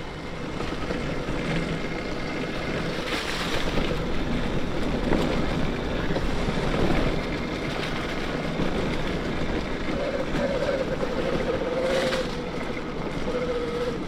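Ride noise from a 72-volt BBSHD mid-drive electric mountain bike on a trail, with wind on the microphone. A wavering motor whine comes in about ten seconds in and again near the end.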